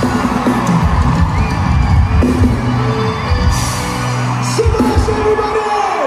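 Live band playing loudly through the hall's PA, with a steady bass line, while the audience whoops and cheers.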